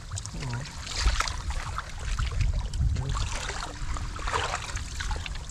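Splashing and sloshing in shallow water, several times, over a continuous low wind rumble on the microphone.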